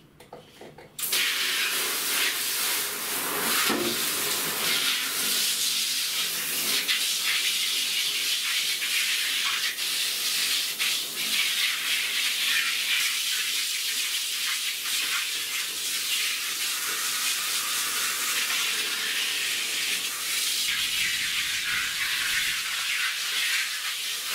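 Handheld shower head on its most powerful few-jet setting, spraying water hard onto horizontal window blinds: a steady hiss of spray and splashing that starts about a second in.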